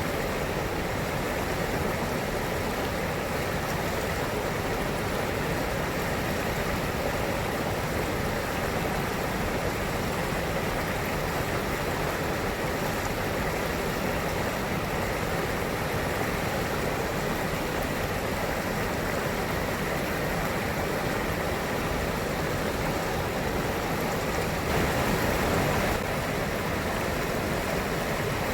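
Flowing river water: a steady, even rush with no other sound standing out, briefly a little louder for about a second near the end.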